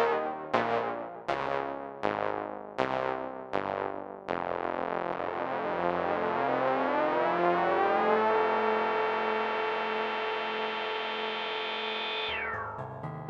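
Waldorf M wavetable synthesizer playing a keyboard patch: a run of struck chords, each decaying quickly, then about four seconds in a long held chord with a slow pulsing that swells and then fades near the end.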